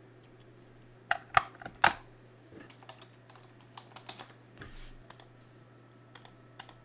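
Computer keyboard typing and mouse clicks: a few sharp clicks about a second in, then lighter scattered clicks, over a faint steady hum.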